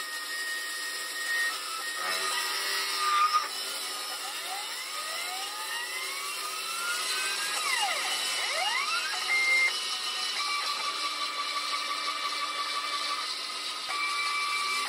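Homemade CNC lathe turning a wooden blank: the spindle runs while the cutter shaves the wood. Over it are whining tones that change pitch every few seconds as the feed moves, with rising and falling glides in the middle and two brief louder spots.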